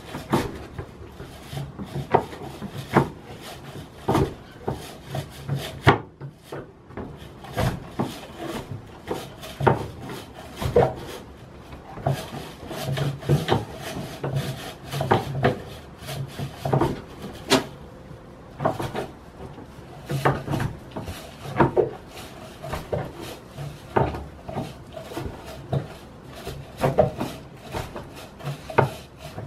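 A goat working its head against a red fixture on a wooden plank wall: a steady run of irregular scrapes, rubs and knocks on wood, about one or two a second.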